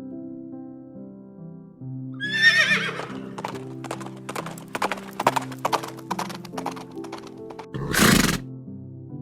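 A horse whinnies once, about two seconds in, then its hooves clop for several seconds, followed by a short loud burst of noise near the end, over background music.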